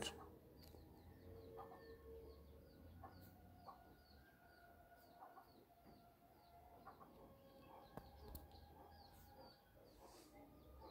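Faint background bird calls: a high chirp repeating about twice a second, with a few fainter, lower calls now and then.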